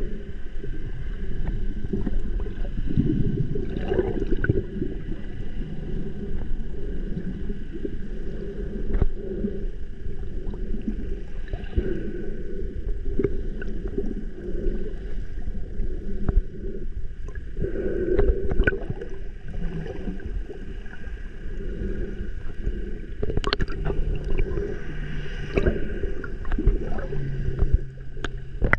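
Muffled underwater noise picked up by a camera filming beneath the surface: dense low water rumble and sloshing with scattered clicks and knocks, over a steady high hum. A low steady drone joins in for a few seconds near the end.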